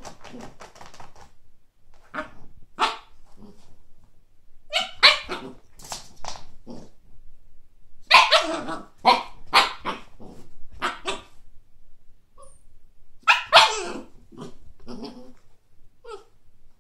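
Siberian husky puppy barking at a frisbee in irregular bursts of short barks with pauses between, the loudest runs coming around the middle and again later on.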